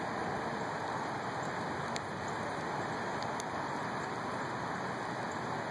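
Steady rush of a flooded river running high, with a few faint clicks.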